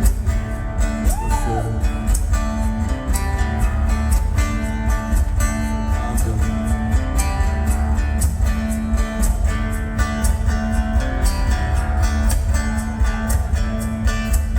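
Live band playing an instrumental passage between verses, guitar to the fore over a strong bass and a steady beat.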